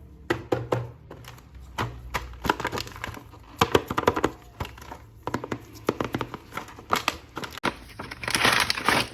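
Plastic toy packaging crinkling and crackling as it is handled and opened, in irregular clicks and rustles, with a denser stretch of rustling near the end.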